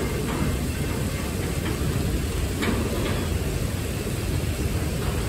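Freight train of autorack cars rolling past, a steady low rumble of wheels on rail mixed with the hiss of rain.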